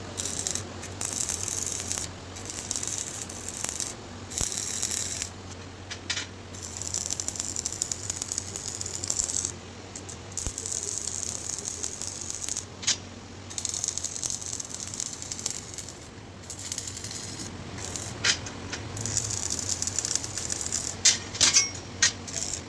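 Electric arc welding crackling and sizzling in runs of a second or two with short pauses between, over a steady low hum. A few sharp metallic clicks near the end.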